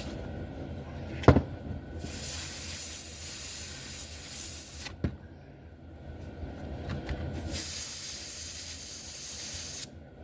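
Two blasts of compressed air, each about two and a half seconds long and starting and stopping sharply, blowing debris out of the brush barrels of an HO slot car chassis. A sharp click comes shortly before the first blast.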